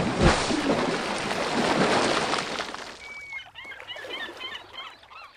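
Channel outro sound effect: a rush of noise with a couple of thuds at the start, fading after about two and a half seconds into a run of short chirping bird calls.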